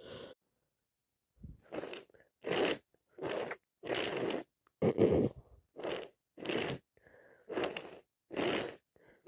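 A woman with a heavy head cold letting out a rapid run of about ten short, noisy breaths, roughly one every three-quarters of a second, starting about a second and a half in.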